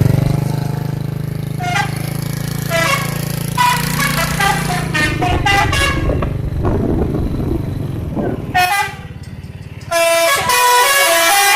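Telolet: a multi-tone musical air horn of the kind fitted to Indonesian buses, playing a quick tune of short notes over a running engine. The notes break off for about a second near the end, then start again.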